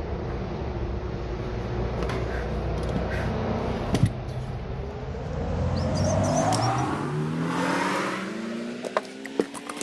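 A motor vehicle's engine accelerating, its pitch rising steadily over a few seconds and then fading, over a low rumble. A sharp click about halfway through and a few clicks near the end.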